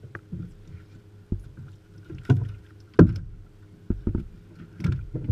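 Knocks and thumps on a fishing boat's hull and deck, the loudest about three seconds in, mixed with bursts of water splashing and sloshing against the boat.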